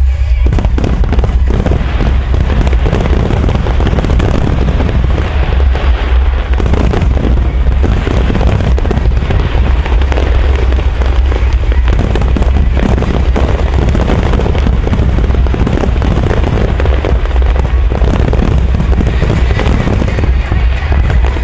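Fireworks barrage: a rapid, unbroken run of shell bursts and crackling with heavy booms, over music.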